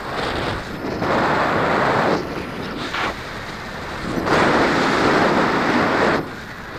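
Airflow rushing over the microphone of a paraglider pilot's camera in flight: wind noise that surges loudly about a second in and again from about four to six seconds, with quieter rushing between.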